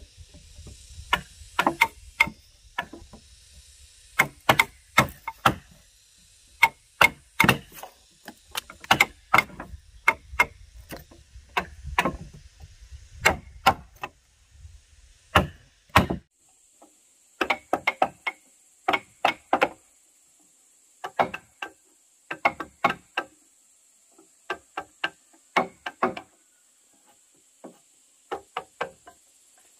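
An axe chopping into a squared wooden beam to cut a notch: sharp, irregular wooden strikes about one or two a second. About halfway through, the strikes give way to quick clusters of lighter knocks from chisels being driven into the frame timbers.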